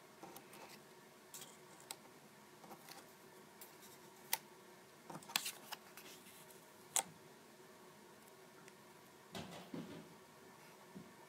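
Paper cutouts handled and laid onto a paper phone mock-up: faint scattered rustles and a few sharp taps and clicks, with a longer rustle near the end.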